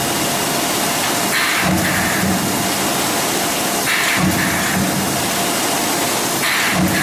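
Salmon-processing machinery, a Ryco header feeding a transfer conveyor, running with a loud steady rushing noise. A brief louder pulse comes three times, about every two and a half seconds.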